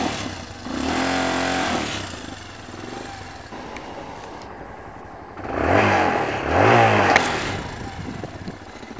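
Motorcycle engine running through its stock, quieter silencer: revved once about a second in, then idling, then blipped twice in quick succession about six seconds in.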